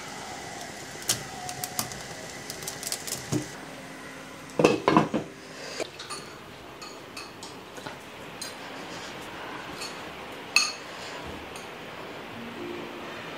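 Metal cutlery clinking and scraping against dishes. Light clicks come first, then a cluster of louder knocks about five seconds in, then scattered clinks of a fork and spoon in a ceramic bowl, with one sharp clink later on.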